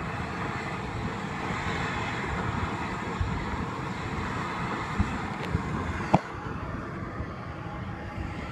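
Steam vent in a hot mud pool hissing steadily, with a few dull thumps; the hiss drops away about six seconds in, right after the loudest thump.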